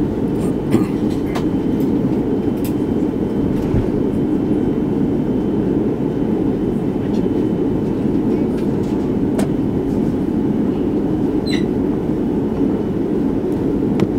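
Steady low rumble inside an Airbus A330-300 cabin as the airliner taxis, its engines running and its landing gear rolling, with a few faint clicks and knocks on top.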